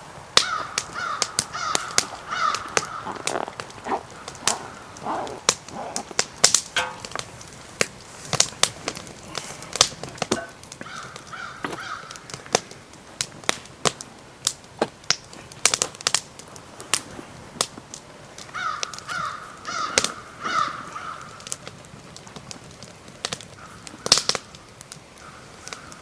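Crows cawing in four runs of several harsh calls each, over the steady snapping and crackling of a small stick fire burning; the sharp pops of the fire are the loudest sounds.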